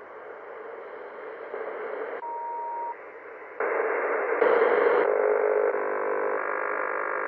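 Receiver audio from an Icom IC-M802 marine HF transceiver being stepped through memory channels: band noise and static that changes abruptly with each channel. A short steady whistle sounds about two seconds in, and from about five seconds several steady tones sound together over the hiss.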